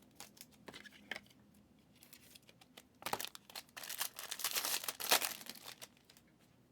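Trading card pack wrapper crinkling and tearing as it is opened, after a few light ticks of cards being handled.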